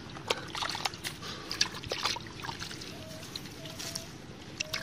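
An arm and hand groping in a muddy, water-filled hole: wet squelching and small splashes of muddy water, with many short irregular smacks.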